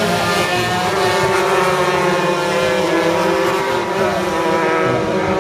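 Junior crosskarts racing, several engines running hard at once, their engine notes overlapping and shifting in pitch as the karts change speed.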